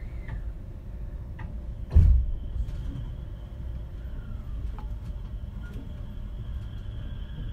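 A single heavy thump about two seconds in, like a 683 series train's sliding doors shutting, over the steady low hum of the standing train. A faint, steady high tone sets in shortly after.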